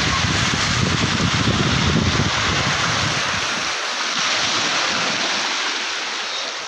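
Small waves breaking and washing up on a sandy beach, with wind buffeting the microphone; the low wind rumble drops away about halfway through.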